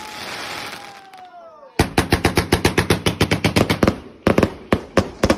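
Fireworks: a hissing whistle that falls in pitch, then a rapid string of sharp bangs, about seven a second, with a brief pause about four seconds in.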